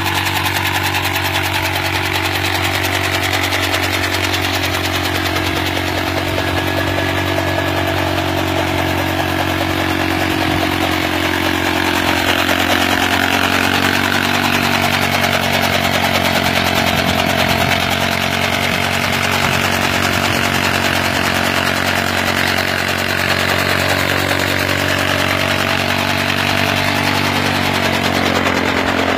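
Single-cylinder 70 cc motorcycle engine running steadily at a constant speed, its rear wheel turning a home-made fodder cutter.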